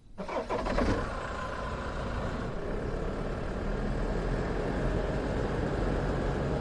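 Safari vehicle's engine starting up suddenly, with a few rough strokes in the first second, then running steadily with a low hum.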